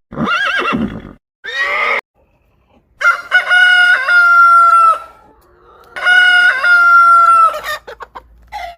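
Animal calls: two short pitched calls, then two long calls about three seconds apart, each rising and then held on one pitch for roughly two seconds.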